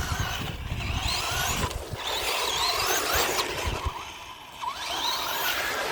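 Radio-controlled cars' electric motors whining, the pitch rising and falling over and over as they accelerate and slow. A low, gusty rumble runs underneath.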